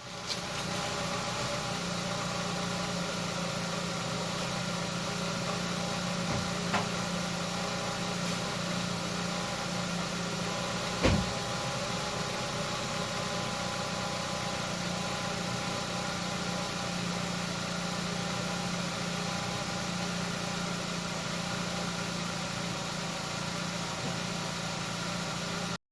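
Nissan Rogue/X-Trail engine idling steadily, with two short sharp knocks, a light one about seven seconds in and a louder one about eleven seconds in.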